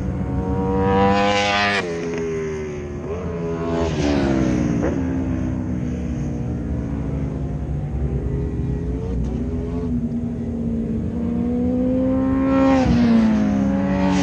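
Racing motorcycles passing on the track one after another. Each engine note climbs and then drops sharply as the bike goes by, about two seconds in, about four seconds in, and again near the end.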